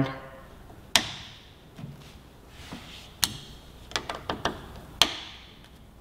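About half a dozen sharp, irregularly spaced clicks and taps as a T-handle hex key and the stock bar end weight knock together while the bar end is unscrewed from a Kawasaki Ninja 400's handlebar.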